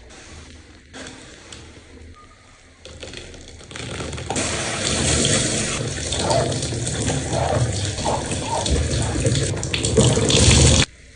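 Running water, starting about four seconds in as a steady loud hiss and cutting off suddenly near the end.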